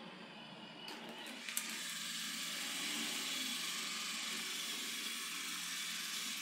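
iRobot Roomba Max 705 Combo robot vacuum running. About a second in, its suction fan ramps up to a louder, higher hiss, with a single click, and holds there: carpet boost engaging.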